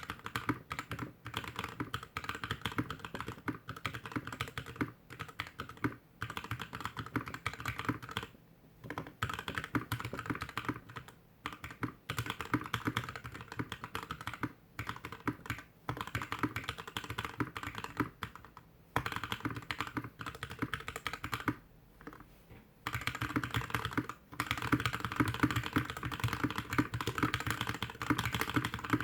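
Typing on a GK61X mechanical keyboard with stock Tecsee Blue Velvet linear switches, DSA keycaps, a stainless steel plate and a plastic case, sitting directly on a desk. Steady slow typing with short breaks, a pause about three-quarters of the way through, then faster, louder typing.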